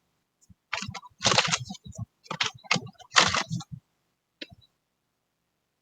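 A deck of tarot cards being shuffled and handled: a run of quick papery riffles and snaps over the first few seconds, then one short click.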